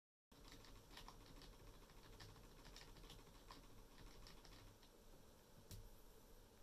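Faint taps on a computer keyboard key, repeated a few times a second, with one slightly louder tap near the end: F10 being hit over and over during power-up to bring up the BIOS setup screen.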